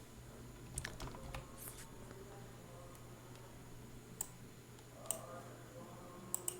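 A few scattered computer keyboard keystrokes, single taps with pauses between them, over a faint steady hum.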